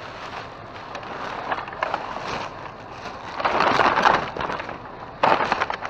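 Rustling and crinkling as bags of discarded clothing are rummaged through and handled, louder for about a second partway through and again briefly near the end.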